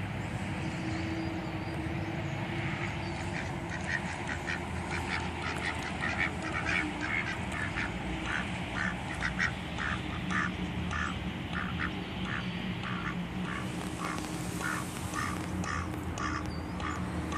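Two white domestic ducks quacking in unison, short quacks repeated about two a second, starting a couple of seconds in, over a steady low background rumble.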